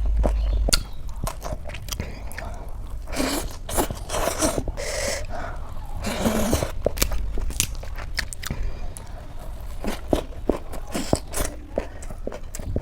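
Close-miked eating sounds: chewing with many small wet clicks, and a few longer squelching bursts.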